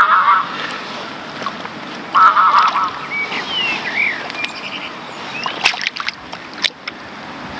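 Geese honking twice, loud short calls at the start and about two seconds in, with other waterbird calls after. Then sharp splashes near the end as a tench thrashes at the water's surface while being released.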